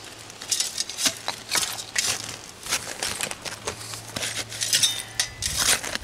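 A short-handled hand digging tool chopping and scraping into dump soil packed with old glass, giving irregular scrapes, crunches and glassy clinks, several a second.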